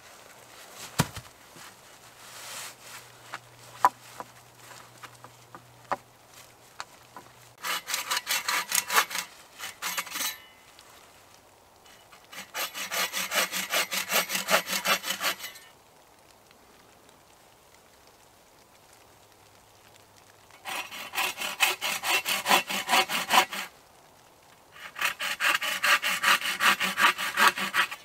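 Hand saw cutting through a wooden pole in four bouts of quick back-and-forth strokes with pauses between, starting about eight seconds in. Before that there are a few scattered knocks.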